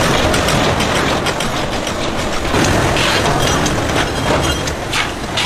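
Match-factory machinery running: a steady mechanical clatter with many sharp clicks, a little denser in the second half.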